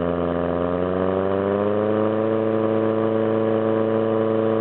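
Portable fire pump's engine running hard, pushing water through the laid-out hose line; its pitch rises a little between one and two seconds in, then holds steady.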